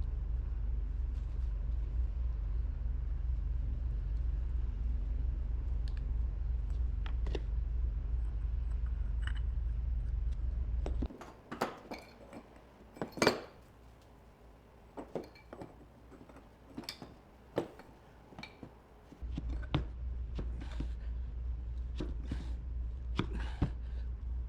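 Small metal parts and tools clinking and tapping, a dozen or so separate clinks with the loudest about thirteen seconds in. Under them runs a steady low hum that cuts off about eleven seconds in and comes back about eight seconds later.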